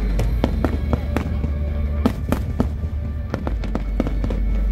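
Aerial firework shells bursting in a rapid, irregular string of bangs, several a second, with music playing underneath.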